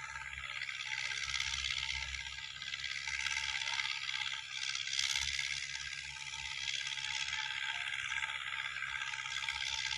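Ford tractor's engine running steadily at a distance as it tills a field, under a steady hiss.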